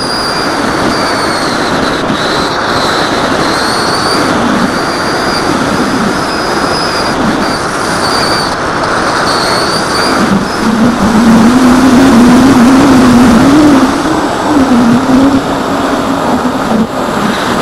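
Electric motor and propeller of an AXN foam RC plane in flight, heard through the onboard camera's microphone with air rushing past it. A faint high whine wavers throughout, and from about ten seconds in a louder, lower propeller hum comes in for several seconds.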